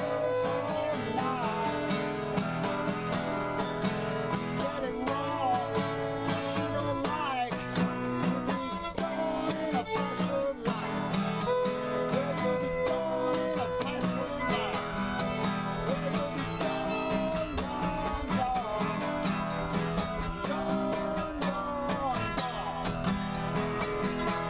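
Acoustic guitar strumming a steady rhythm under a fiddle playing a bluegrass melody with sliding notes.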